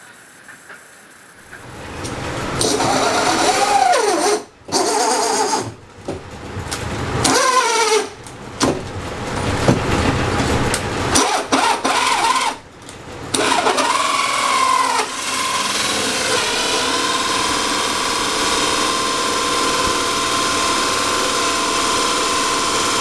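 Electric drill motor starting up and running, its pitch rising and falling with several brief stops during the first half, then settling into a steady whine.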